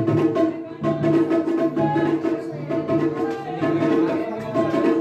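Instrumental music: sustained, steady notes over a drum beat.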